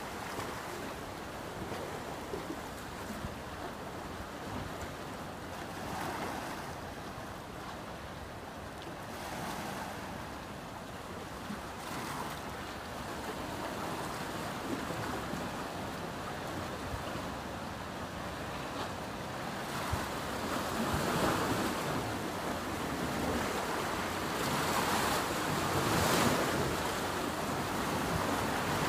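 Sea waves washing, with wind buffeting the microphone, growing louder over the last several seconds.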